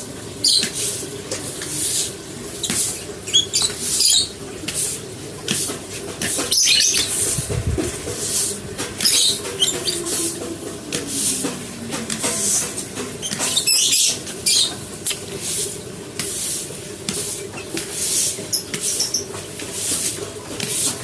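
Scratchy scrubbing strokes, about one to two a second, as of a brush scrubbing an animal cage.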